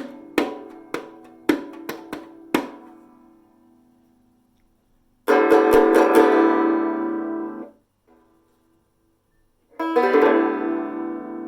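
Freshly restored banjo being picked: a quick run of single plucked notes that rings away into silence, then a strummed chord that rings for about two seconds before being damped, and a second strummed chord near the end left to ring.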